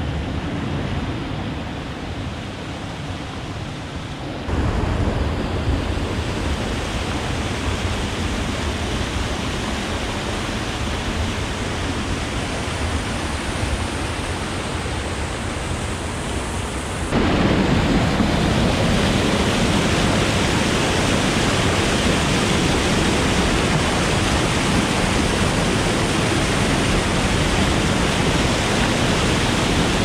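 Rushing water of a small river waterfall and rapids pouring over granite ledges: a steady, loud rush that gets suddenly louder about four seconds in and again a little past halfway.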